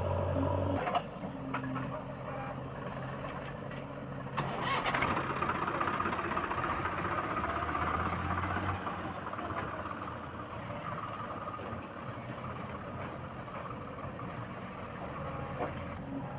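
Diesel engines of a backhoe loader and farm tractors running steadily, with a louder rush of noise starting about four seconds in.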